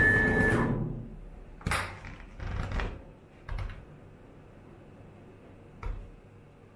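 CNC router machinery running with a steady high whine that stops about half a second in, its lower running noise dying away within about a second. After it come a few scattered short knocks and clicks over quiet room tone.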